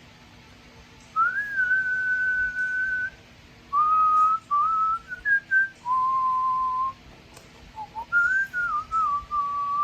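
A person whistling a slow tune by mouth. It opens with a long held note, then moves through short stepping notes and a lower held note, with brief pauses between phrases.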